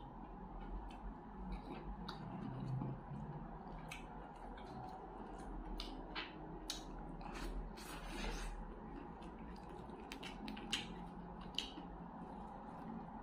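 Close-up eating sounds: fingers picking apart crisp fried fish and pressing rice, with chewing and wet mouth clicks, a quick scatter of small crackles and clicks throughout.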